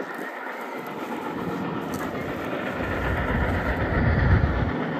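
Union Pacific Big Boy 4014 steam train rolling along the rails, a dense rumble of wheels and running gear that swells to its loudest about four seconds in.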